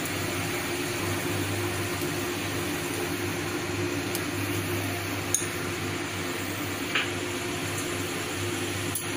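Water at a rolling boil in a large aluminium pot on a gas stove: a steady bubbling hiss over a steady low hum, with a couple of faint clicks midway.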